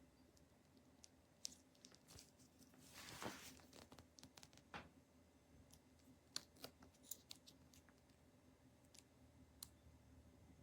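Near silence with faint handling noise: scattered light clicks and a brief rustle about three seconds in.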